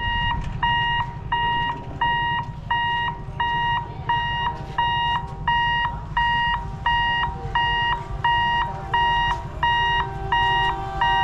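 Railway level-crossing warning alarm beeping in a steady rhythm: a high, even electronic tone a little under twice a second, sounding while the gate is closed for an approaching train. A low rumble runs underneath.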